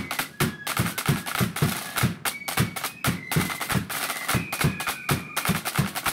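Marching flute band playing a march: side drums rattle dense rolls and strokes, a bass drum beats about three times a second, and flutes carry a high melody over the drums.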